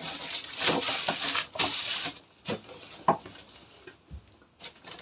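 A parcel being handled: its packaging rustles and crinkles for about two seconds, then a few light knocks and taps, the sharpest about three seconds in.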